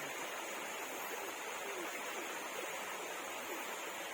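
Steady rushing of a flowing creek, an even wash of water noise, with a few faint short chirps over it.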